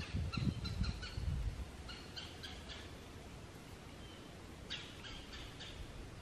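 A wild bird calling in three short runs of quick repeated chirps, over a low rumble that fades out in the first second and a half.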